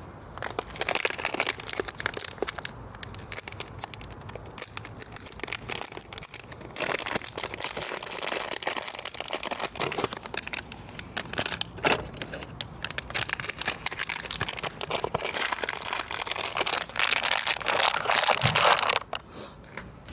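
Plastic packaging crinkling and tearing, with small handling clicks, as the new backup camera is unwrapped; it eases off just before the end.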